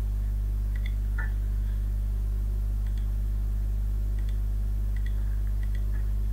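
A steady low hum on the recording, with a few faint, scattered clicks of a computer mouse and keyboard keys as a file type is chosen and a file name is typed.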